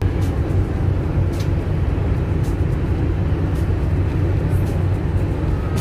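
Steady low rumble of a ferry's engines heard from the open deck, with a noisy hiss over it.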